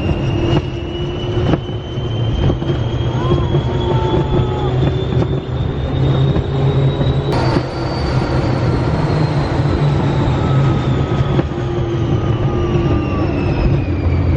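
Test Track ride vehicle running on its track through the power-test section: a steady low rumble, with the ride's electronic sound effects over it, a tone rising slowly, jumping higher about seven seconds in, then gliding down.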